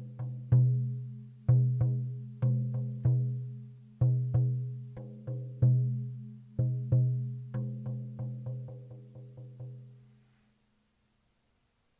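A short percussion interlude: a low, pitched drum struck in an uneven rhythm, each stroke ringing and dying away. The strokes speed up into a quick run that fades out near the end.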